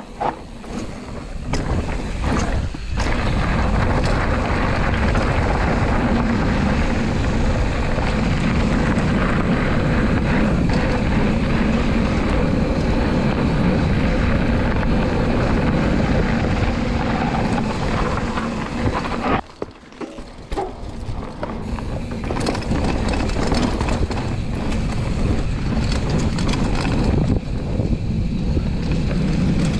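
Mountain bike riding fast down a rough dirt and gravel track: wind rushing over the GoPro's microphone with the tyres rumbling and the bike rattling over stones. The rush drops away briefly about twenty seconds in, then picks up again.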